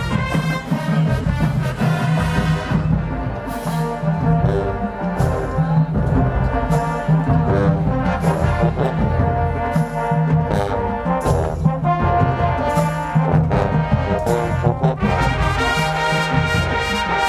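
High school marching band playing: loud brass with a heavy low-brass bass line and percussion hits.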